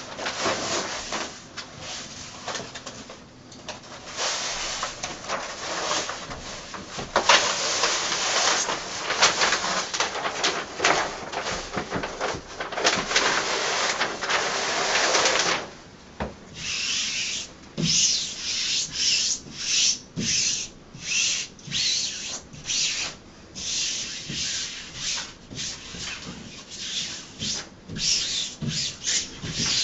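Hands rubbing and smoothing a self-adhesive wall wrap onto a wall. For the first half it is a continuous rustling rub; about halfway through it turns into short, quick swiping strokes, roughly one and a half a second.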